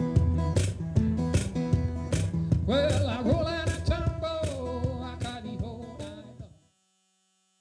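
Acoustic blues on resonator guitar with a steady plucked beat. About three seconds in, a line of bending, wavering notes joins it. The music fades and cuts off about six and a half seconds in.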